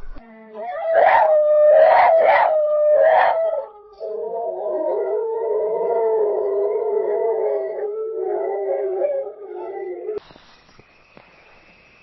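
Wolves howling: a few short yipping calls, then a long, steady howl with several voices overlapping, which cuts off abruptly near the end, leaving a faint hiss with a thin high tone.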